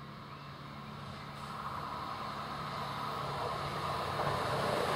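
Yellow self-propelled track maintenance machine running along the rails toward the listener: a steady low diesel engine hum with the noise of wheels on track, growing steadily louder as it approaches.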